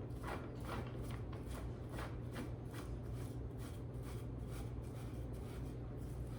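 Cat tree part being screwed in by hand: short rustling, scraping strokes at about three a second as the piece is turned and tightened.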